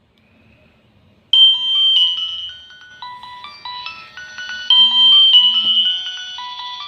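Nokia 6080 mobile phone playing a polyphonic ringtone melody through its small loudspeaker. The tune starts suddenly about a second in, after a short quiet gap, and moves in quick stepped notes with several tones sounding together.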